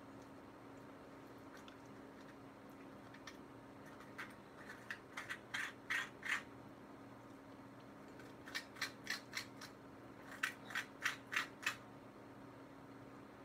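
Fingers peeling the bumpy skin off a ripe avocado half: short crackly scraping ticks in two bursts, one around four to six seconds in and one around nine to eleven seconds in, over a steady low hum.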